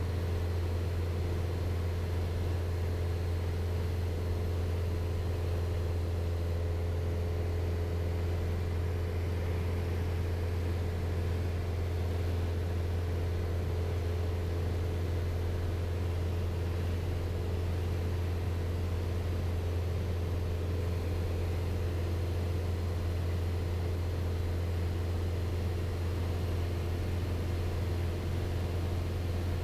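Piper PA-28 Archer 180's four-cylinder Lycoming engine and two-blade propeller droning steadily in cruise flight. It is a deep, even hum that holds constant power throughout.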